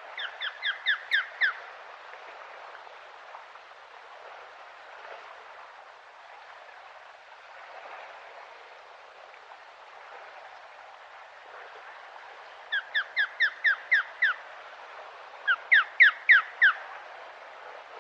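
Osprey calling: three quick runs of short, sharp repeated notes, six to eight notes in each, one at the start and two close together near the end, over a steady hiss.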